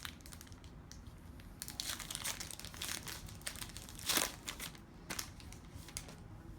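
A 2017 Topps Allen & Ginter baseball card pack wrapper being torn open and crinkled by hand: a run of irregular crackles, loudest about four seconds in.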